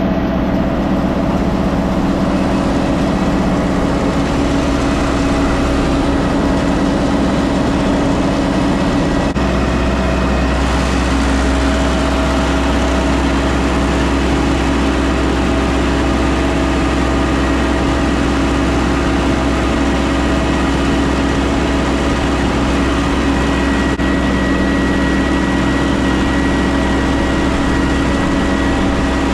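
Tractor engine running steadily with a low rumble and a steady hum, the rumble growing louder about a third of the way in.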